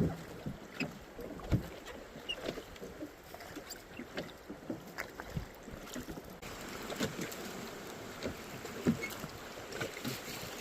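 Water slapping against the hull of a small boat, with irregular knocks over a background hiss that grows louder about six seconds in.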